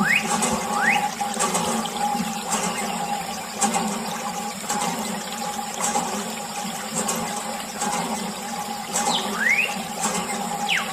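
Water pouring from a thin tube and splashing onto a toy tractor and into its plastic trailer, with a few short rising squeaks near the start and near the end.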